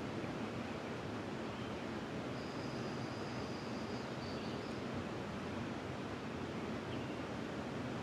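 Steady rushing of flowing river water. About two and a half seconds in, a bird gives one high, thin whistled note held for about two seconds.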